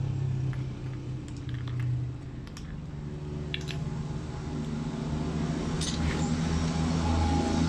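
Steady hum of a running engine, growing a little louder near the end, with a few faint light clicks of small metal diesel injection-pump parts being handled and fitted.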